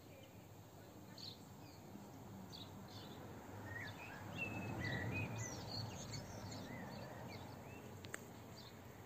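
Outdoor garden ambience: several small birds chirping and whistling in short scattered calls, busiest in the middle, over a faint low rumble.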